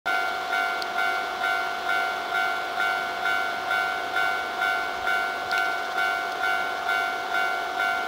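Japanese railway level-crossing warning bell ringing, a repeated ding a little over twice a second, sounding for an approaching train.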